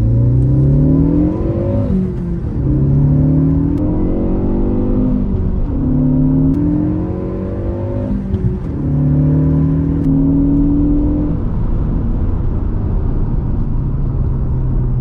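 Ford Focus ST engine accelerating hard through the gears. The engine note climbs, drops sharply at a gear change about two, five and a half and eight and a half seconds in, and climbs again each time. After about eleven and a half seconds it settles to a steady lower drone.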